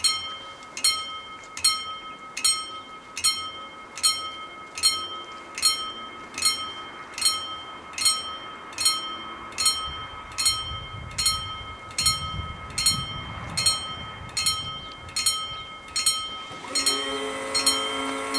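Level crossing warning bell ringing in even strokes, a little more than one a second, each stroke ringing on between strikes: the crossing is closing for an approaching train. Near the end a steady pitched hum of several tones joins in.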